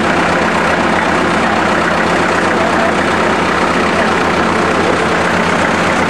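Gas-start diesel power unit of an antique sawmill running steadily at an even speed.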